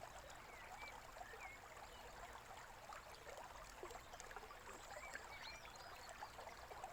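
Faint small stream trickling steadily, with a few brief, faint bird chirps scattered through.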